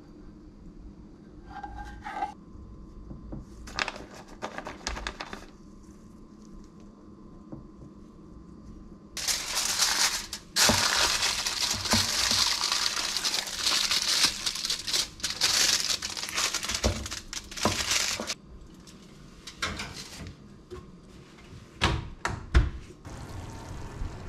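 Aluminium foil crinkling loudly for about nine seconds as it is pressed and crimped over a glass baking dish. A few sharp knocks follow near the end.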